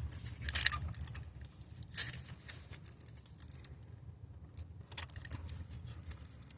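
Scattered clicks and rattles of hands working a wiring clip into place, with sharper clicks about half a second, two seconds and five seconds in, over a faint low hum.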